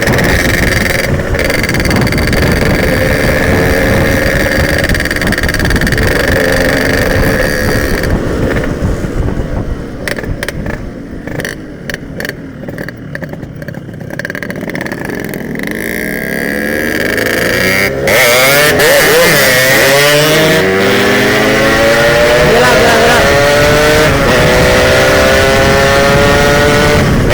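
Yamaha RX-King single-cylinder two-stroke motorcycle engine heard while riding, with wind rush. It eases off and goes quieter for several seconds near the middle, then about two-thirds of the way in it picks up sharply, the revs rising again and again as it pulls hard through the gears.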